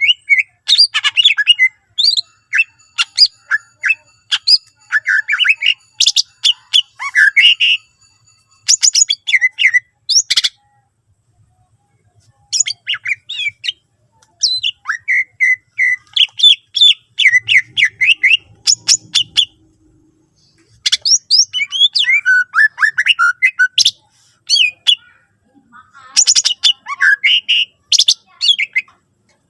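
Cucak ijo (green leafbird) singing loudly in rapid phrases of chirps, whistles and harsh notes, with short pauses between them. This is a full song, packed with mimicked calls of other birds.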